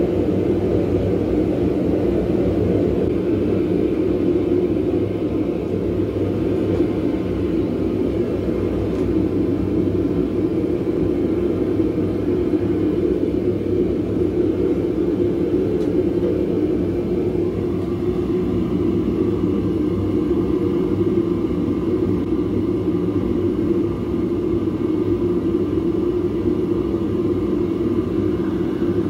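Propane burner of a Devil Forge furnace running with a steady, low rushing sound. A faint higher hiss joins about two-thirds of the way through.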